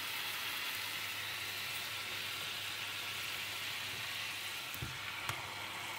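Pork chop sizzling and bubbling in oil and its own juices in a nonstick frying pan, a steady hiss, with a faint low hum under it. A couple of light knocks come near the end.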